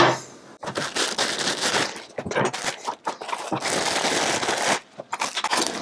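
Packaging being handled while accessories are unpacked: an irregular run of crinkling and rustling crackles.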